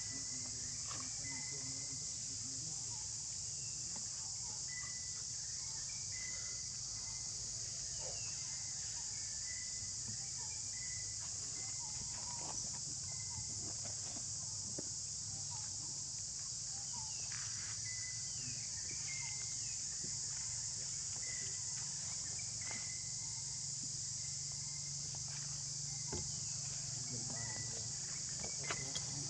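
Steady, high-pitched chorus of insects, with faint short chirps and scattered light clicks over it.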